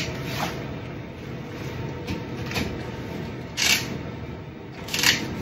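Sleeper train running with a steady low rumble, and about four short, sharp clicks and rattles at an electronic compartment-door lock as a key card is tried on it and fails to open the door.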